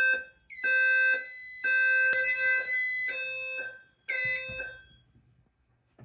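Voice-evacuation fire alarm speakers of a Notifier NFS2-3030 system sounding the alert tone between spoken evacuation messages. It comes as a series of steady electronic tone blasts with short gaps between them, several pitches at once, and stops about four and a half seconds in.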